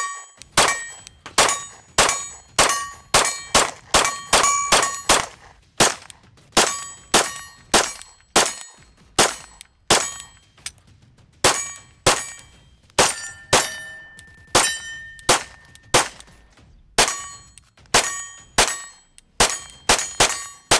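9mm Glock 19 pistol with a Herrington Arms HC9C 3.0 compensator fired in a long rapid string, about two shots a second with some quicker pairs. Many shots are followed by a brief metallic ring.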